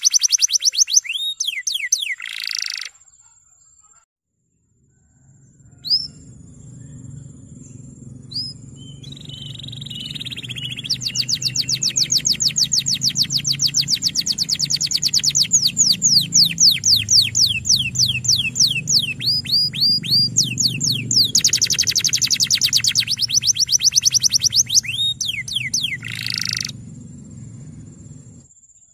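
Male domestic canary singing long rolls: runs of very fast, evenly repeated high notes broken by sweeping slurred notes. There is a pause about three seconds in before the song resumes. A low steady hum runs under the song from about five seconds in until near the end.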